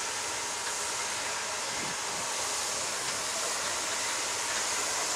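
Two coupled steam locomotives, the nearer a class 01 Pacific, rolling past with a steady hiss of steam.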